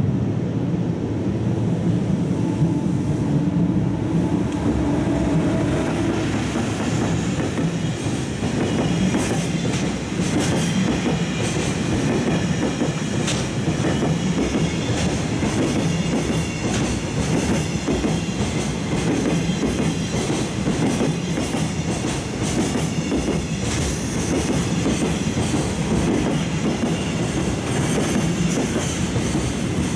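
Freight train's container wagons rolling past as the train pulls into the station, wheels clattering over the rail joints in a quick rhythm, with high squealing from wheels and brakes over a steady rumble.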